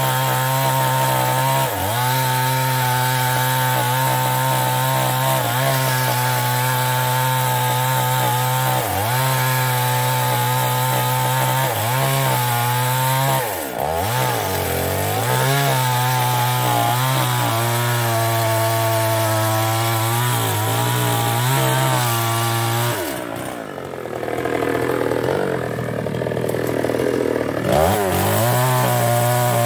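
Chinese-made two-stroke chainsaw running at high revs while cutting old mahogany wood, its engine note dipping briefly several times. About 23 seconds in the revs fall off for several seconds, then rise sharply again near the end.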